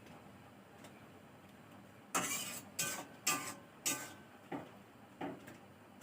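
A metal utensil scraping and knocking in a cooking pot, with four loud strokes between about two and four seconds in and two softer ones after.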